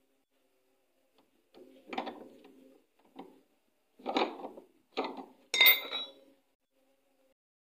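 Metal parts and hand tools knocking and clinking together in about five separate strikes. The loudest, near the end, gives a short metallic ring.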